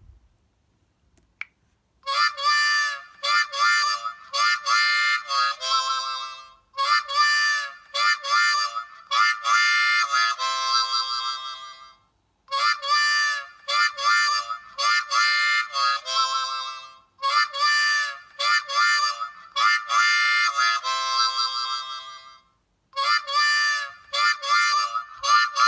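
LG Spirit phone ringtone playing: a short melodic phrase with no bass, starting about two seconds in and looping about every five seconds with brief pauses between repeats.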